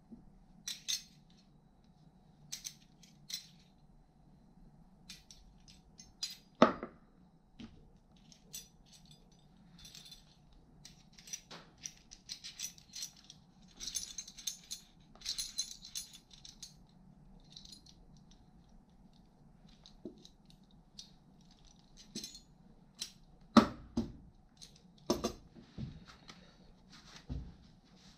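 Small steel tool parts clinking and rattling as gloved hands handle them and set them down on a cloth-covered workbench. There are scattered light clicks and several sharper knocks, the loudest about six seconds in and twice more near the end, over a steady low hum.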